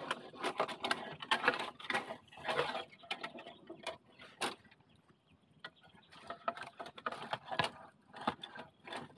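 Dry bamboo leaves and twigs rustling and crackling as someone moves through and works a bamboo clump, with a sharp snap about four and a half seconds in.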